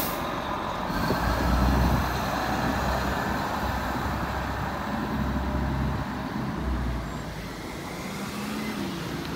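1999 Pierce Lance aerial ladder truck's diesel engine pulling away and accelerating. The deep rumble is loudest a second or two in and fades near the end as the truck moves off. There is a brief burst of noise at the very start.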